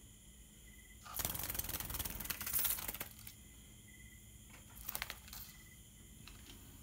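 Wings of a small sunbird fluttering in rapid rustling bursts, a longer spell about a second in and a short one about five seconds in, as the bird is caught by hand.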